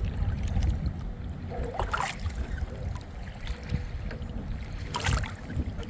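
Kayak paddle strokes in the water, with short splashes about two seconds in and again near five seconds, over a steady low rumble.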